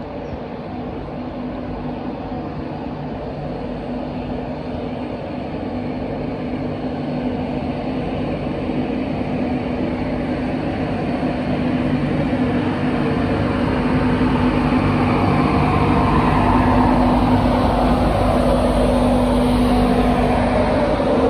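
Class 91 electric locomotive running into the platform, a steady electric hum growing louder as it approaches. Near the end, as the cab comes alongside, a whine falls in pitch.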